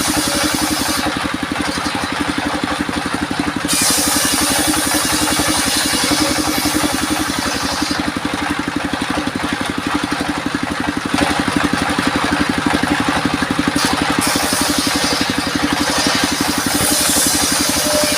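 Engine-driven homemade sawmill running steadily, with a fast even firing pulse. A high hiss comes and goes several times as the saw cuts through albasia (sengon) wood.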